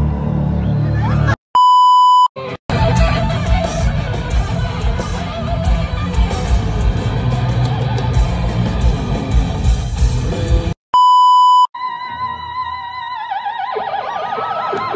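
Live rock band with electric guitars playing at a concert, cut twice by a steady censor-style bleep tone, once about a second and a half in and again near eleven seconds. After the second bleep a lead electric guitar carries a wavering melody.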